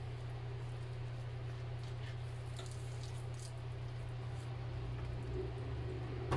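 Faint wet squishing of hands rubbing marinade over and inside a raw whole tilapia, with a few soft scattered ticks, over a steady low hum.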